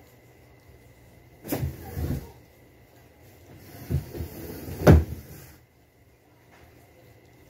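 Two bursts of knocking and rattling, the first about a second and a half in and the second about four to five seconds in, ending in a sharp, loud knock.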